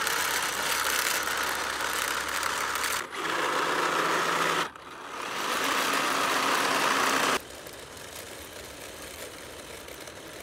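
The rover's 3D-printed gearboxes, driven by 5010 brushless motors, running and making weird noises, which the owner puts down to dirt and small pebbles kicked up and lodged inside while the rover was stuck. The sound comes in short stretches, each with its own steady tone, changing abruptly about three, four and a half and seven seconds in. After about seven seconds it is quieter and more distant.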